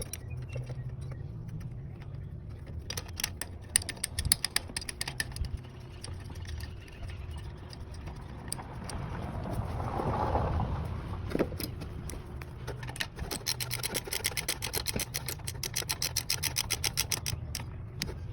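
Ratchet wrench clicking in quick runs while the starter's two mounting bolts are tightened, with handling noise between the runs.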